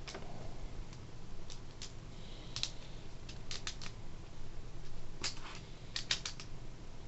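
Loose Lego plastic pieces clicking and clattering against each other and a wooden tabletop as hands rummage through and sort a pile of bricks. The sharp clicks come irregularly, some singly and some in quick little runs of three or four.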